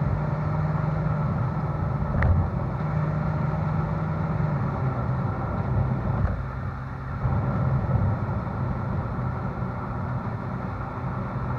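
Ferrari California's V8 exhaust note, heard from the rear of the car, cruising steadily at low speed. There is a sharp knock about two seconds in, and the note eases off briefly a little past halfway.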